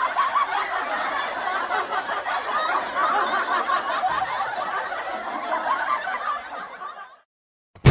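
Laughter, long and continuous, fading out and stopping about seven seconds in.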